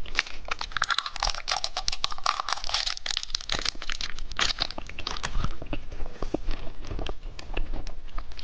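Plastic candy wrapper crinkling and tearing for several seconds, then hard candy being crunched and chewed close to the microphone with sparser, sharper crunches.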